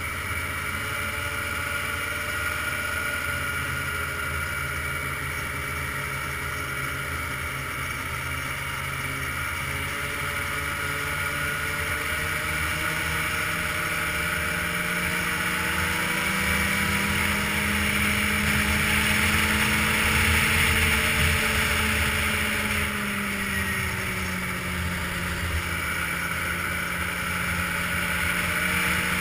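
Ski-Doo touring snowmobile's engine running under way along a trail, with track and wind noise. Engine pitch and loudness climb gradually from about halfway through, peak, then ease off a few seconds before the end.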